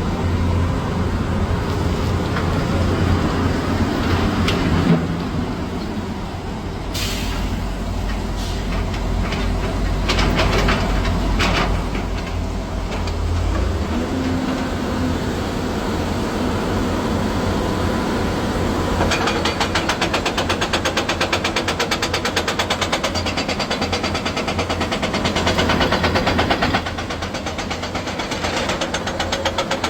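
Diesel engine of heavy construction machinery running with a low rumble and some clattering. From about two-thirds in it takes on a fast, even diesel clatter.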